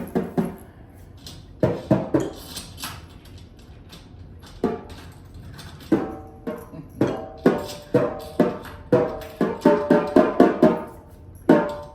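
Drum heads of a new kit, not yet tuned up, tapped by hand. The hits come irregularly, each with a short ringing tone, and come faster in the second half.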